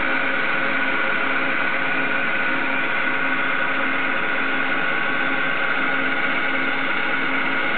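Small lathe running steadily while a boring bar cuts a hemispherical recess in the spinning workpiece, its saddle and cross slide driven by stepper motors. A continuous, even hum with a held whine and no breaks.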